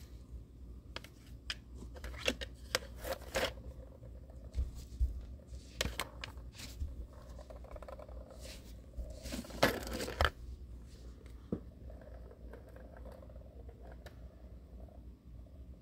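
Plastic balls rolling and clattering around the tracks of a tiered cat ball-track toy: scattered clicks and short rattles, with a denser burst of rattling about ten seconds in.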